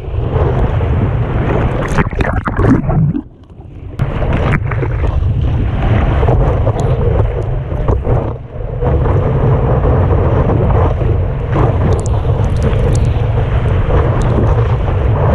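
Wind buffeting the microphone of a board-mounted camera, with water rushing and splashing as the surfboard rides through whitewater. The sound drops away briefly about three seconds in, and dips again for a moment near the middle.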